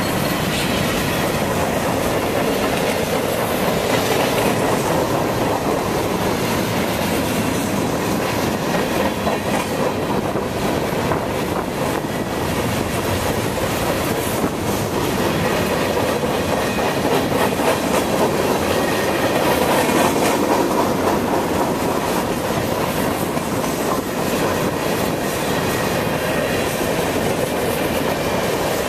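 Cars of a manifest freight train rolling past close by: a steady rumble and rattle of steel wheels on the rails, with a run of repeated clacks over the rail joints.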